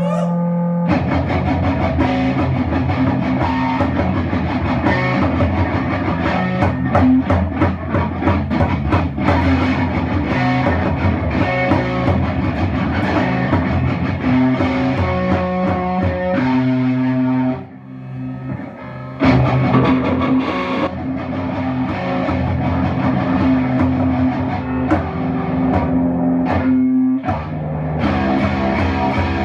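Instrumental rock music led by guitar, with drums. About eighteen seconds in it thins briefly to a few held notes, then comes back in full.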